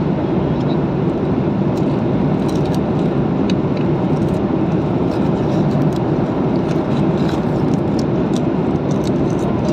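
Steady roar of an airliner's cabin in flight, with faint scattered ticks and rustles from football cards being handled close by.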